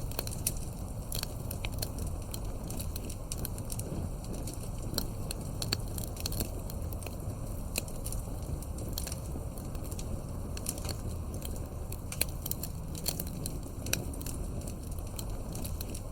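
Wood fire burning with a steady low rumble and frequent, irregular sharp crackles and pops.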